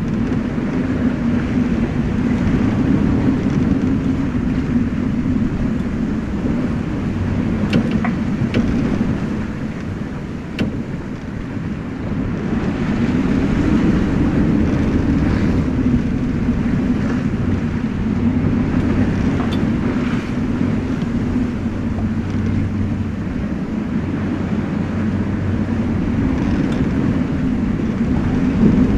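Steady rush of wind and sea as a sailing yacht drives through a rough, whitecapped ocean, with wind buffeting the microphone into a low rumble. A few light knocks come from the boat.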